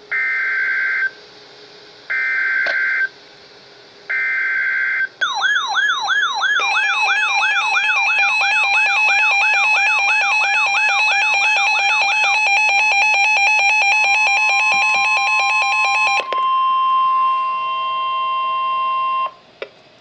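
NOAA Weather Radio emergency alert coming through weather alert radios. First come three short bursts of SAME digital header data, about a second each and two seconds apart. Then the radios' alarm sounds for about ten seconds, a fast warbling siren with rapid beeping, over the steady 1050 Hz warning tone. The tone carries on alone for a few seconds and then cuts off.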